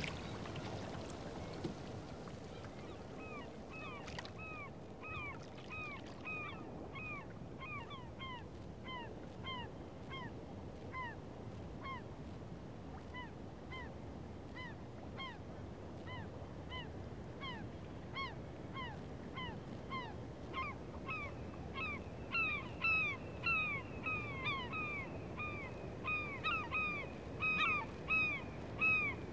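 A flock of birds calling: many short, arched calls that overlap, sparse and faint at first and growing denser and louder toward the end, over a steady low background noise.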